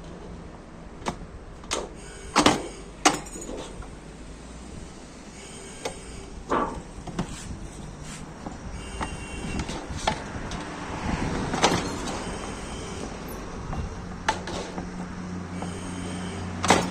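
Sharp metallic knocks and clanks from a sheet-metal angle-cutting machine being worked, with a steady low machine hum starting near the end.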